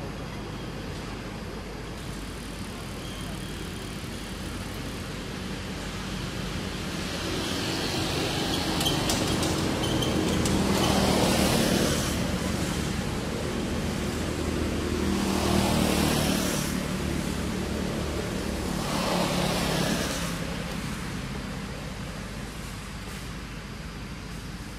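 Road vehicles passing one after another: a steady low traffic rumble that swells three times, twice loudly, as vehicles go by.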